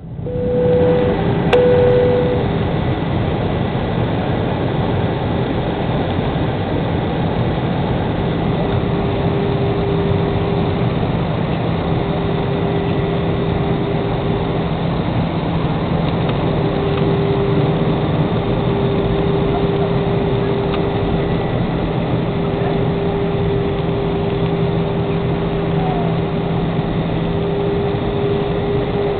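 Airbus A320 cabin noise on the approach to landing: a steady rush of airflow and jet engines with a constant low hum. Two short beeps sound about a second in.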